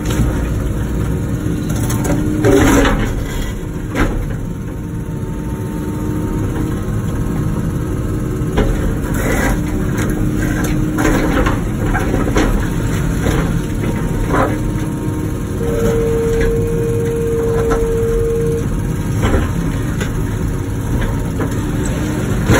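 Wacker Neuson ET145 excavator's diesel engine running steadily under working load, with scattered sharp knocks and clunks and a steady whine lasting about three seconds past the middle.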